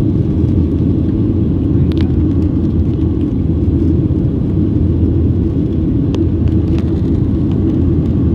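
Steady low rumble of a jet airliner's cabin in flight, with a few faint clicks about two and six seconds in.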